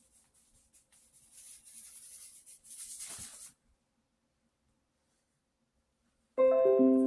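Scratchy rubbing of a paintbrush on paper, ending in a soft knock, then dead silence. Near the end, background music starts abruptly with a loud piano-like chord that rings and fades.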